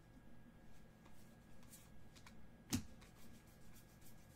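Trading cards handled and sorted by hand: faint sliding and rustling of cardstock, with one sharp click a little past halfway through.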